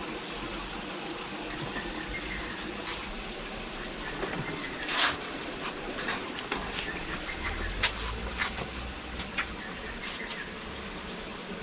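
Steady rushing hiss with scattered light clicks and knocks, the loudest about five seconds in and a few more between about eight and nine and a half seconds.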